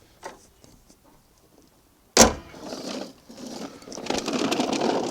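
A single sharp bang about two seconds in, followed by a few seconds of rustling, clattering handling noise.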